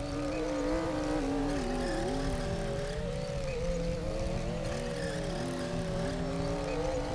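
Heavy earthmoving machinery running steadily, a low engine rumble under several wavering whines that slide up and down in pitch.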